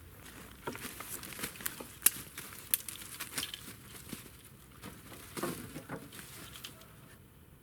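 Irregular rustling and crackling, like dry material being handled, with scattered sharp cracks; the loudest crack comes about two seconds in.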